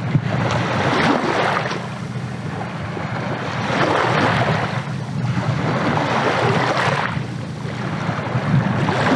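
Small sea waves washing in, swelling about every three seconds, over a steady low rumble of wind on the microphone.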